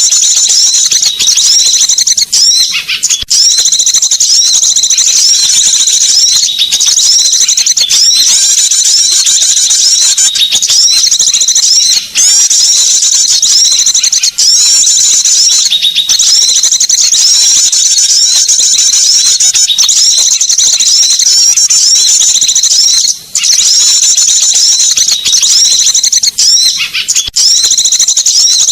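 Small-bird lure call (suara pikat) played without a break: dense, high-pitched chirping and twittering, rapid curved notes repeated over and over. A few brief gaps interrupt it.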